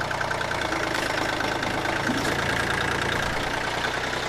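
Kubota diesel tractor engine running steadily, heard from the driver's seat just behind its upright exhaust stack.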